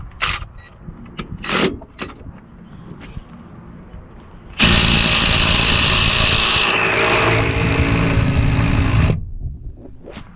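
Ryobi P263 cordless brushed-motor impact wrench running for about four and a half seconds, starting and stopping suddenly, after a few light handling clicks.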